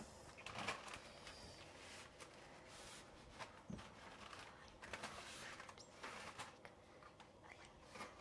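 Faint, irregular crackling and rustling of thin dry Chinese wheat noodles being snapped in half and added to the pot a few at a time.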